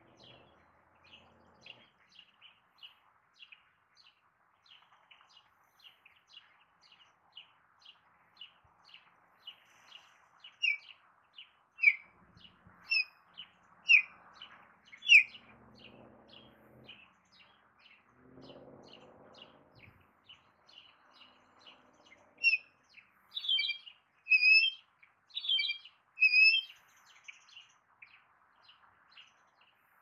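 Canada goose goslings peeping: short high peeps two or three times a second throughout, with louder, sharper peeps in a spell around the middle and again near the end.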